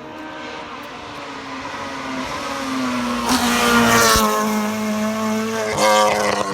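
Race car engine at full throttle on a hillclimb, growing steadily louder as the car approaches and passes close about four seconds in. The engine note breaks briefly near the end.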